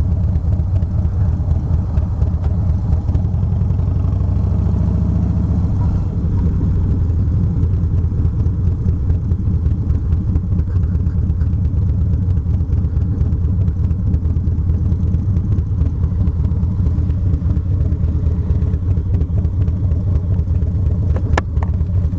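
Harley-Davidson Low Rider S V-twin engine running under way at road speed, heard from on the bike. The engine's pitch rises for a couple of seconds about four seconds in as it accelerates, then holds steady. There are a couple of short clicks near the end.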